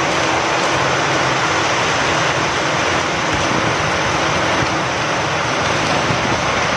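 Steady rain falling, with wind blowing through it.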